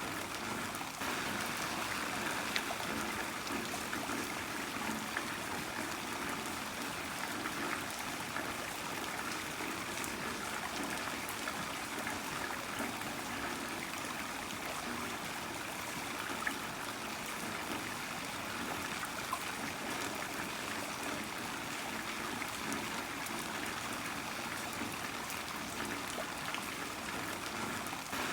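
Heavy rain falling steadily, a continuous wash of noise scattered with many small drop ticks.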